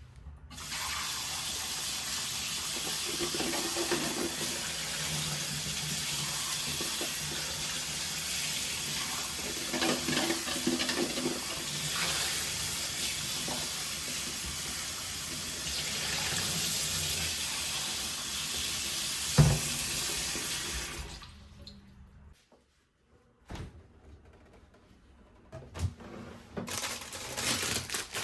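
Kitchen tap running into a sink in a steady rush, turned on about half a second in and shut off after about twenty seconds, with a sharp knock shortly before it stops. A few clicks and some light clattering follow near the end.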